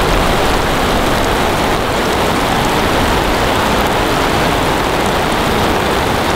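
Heavy downpour falling hard on a camping tarp overhead: a loud, steady, dense hiss of rain.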